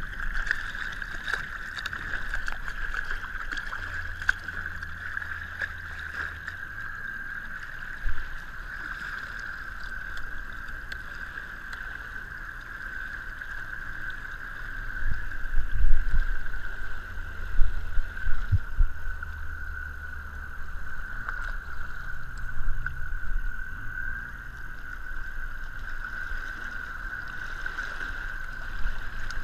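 Triton TR186 bass boat under way at low speed. Water washes and splashes along the hull right by the microphone, over a steady high whine from the running boat. There are a few louder splashes and knocks midway.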